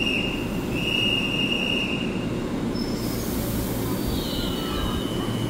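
Taiwan Railway EMU3000 electric train moving slowly alongside the platform, a low rumble with a high-pitched wheel squeal, first near the start and again from about four seconds in.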